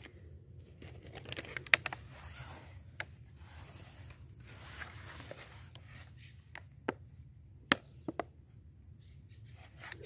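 A plastic-jug fish trap handled and pulled open by hand: the thin plastic rustles and crinkles, with scattered sharp clicks, the two loudest about two seconds in and near eight seconds.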